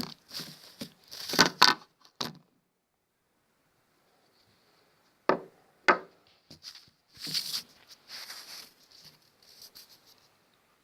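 Close-up handling noises: a quick run of clicks and taps, a pause, two sharp clicks, then a few seconds of rustling.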